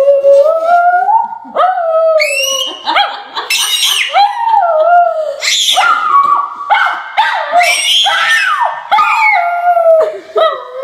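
A curly-coated dog howls in long calls that slide up and down in pitch, again and again. In between the howls come shorter, higher squeals, which fit a baby squealing and laughing along.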